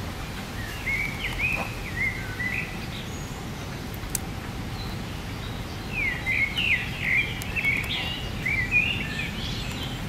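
A songbird singing in two bouts of short whistled phrases, a brief one near the start and a longer, busier one from about six seconds in, over a steady low background noise.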